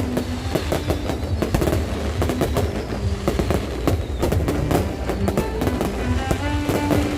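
Fireworks display: a rapid, unbroken run of cracks and bangs from bursting shells, with music playing underneath.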